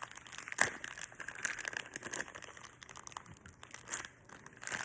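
A plastic wrapper crinkling and rustling as it is handled and pulled at, with one sharp crackle about half a second in.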